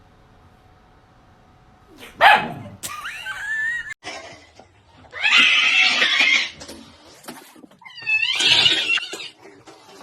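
A dog vocalising in loud, rough outbursts: after about two seconds of quiet comes one call falling in pitch, followed by longer calls about five and eight seconds in.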